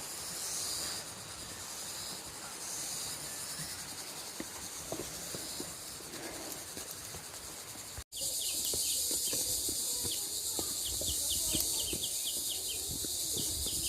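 A chorus of forest insects makes a steady high buzz. About eight seconds in it cuts out for an instant and comes back much louder, with quick chirps repeating several times a second above the buzz. Faint low knocks sound throughout.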